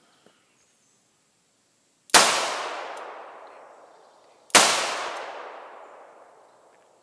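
Two shots from a 2-inch Smith & Wesson Model 66 .357 Magnum revolver, about two and a half seconds apart. Each is a sharp crack followed by a long echo that dies away over about two seconds.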